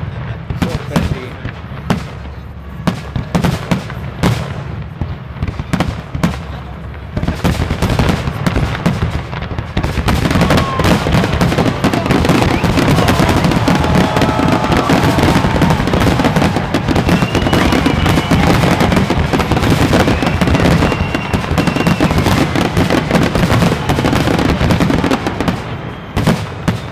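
Fireworks display: a rapid series of bangs and crackling bursts that thickens into a dense, continuous, louder barrage about ten seconds in.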